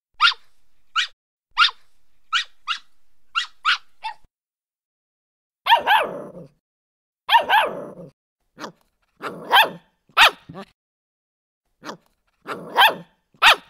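Recorded puppy barks played back from a dog-sounds app. First comes a run of about eight quick, high-pitched yips, then after a short pause a string of fuller, deeper puppy barks, some in quick pairs.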